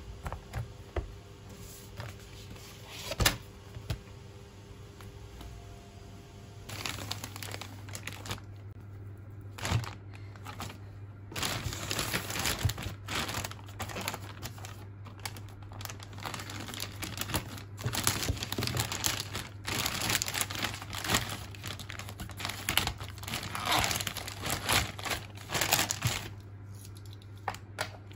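Plastic courier mailer bag being torn open and handled, a dense crinkling and rustling of thin plastic that starts about a quarter of the way in and goes on with many small tearing crackles. Before that, a single sharp knock.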